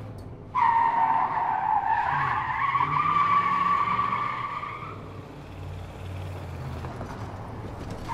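Race-car sound effect: a high, wavering screech of skidding tyres. It starts abruptly about half a second in and weakens after about five seconds.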